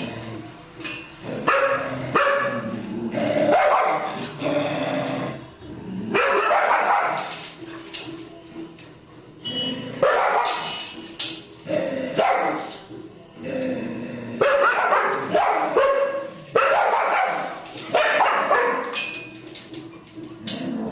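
Dogs barking and yelping loudly in repeated outbursts.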